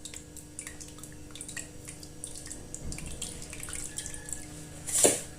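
Sugared citrus syrup dripping and trickling through a strainer, a scatter of small irregular drips. A brief louder noise comes about five seconds in.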